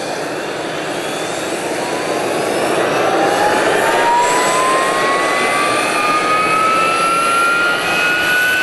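A Harrier's Rolls-Royce Pegasus turbofan runs on the ground with a loud rushing noise. About three seconds in, a strong whine joins it and rises steadily in pitch as the engine spools up.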